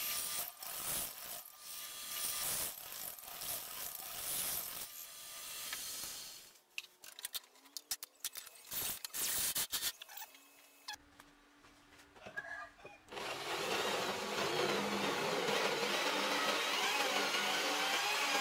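Drill press cutting into a steel plate with a twist bit: a steady grinding that starts about 13 seconds in, with a faint wavering high tone above it. Before it come dense metallic clicking and rattling, then scattered clicks.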